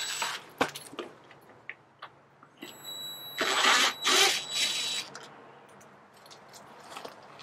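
Yellow-and-black DeWalt-style cordless drill-driver whirring in several short runs with a steady high whine, backing screws out of a camper's aluminium side skirt, with small clicks of the bit and screws between runs.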